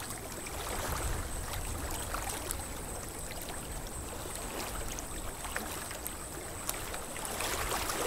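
Water trickling and splashing softly as a wooden paddle pulls through calm lake water beside a wooden rowboat, over a steady low rumble.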